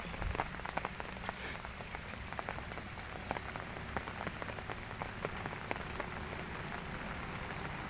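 Heavy rain falling steadily, a constant hiss with many separate drop hits clicking on a surface.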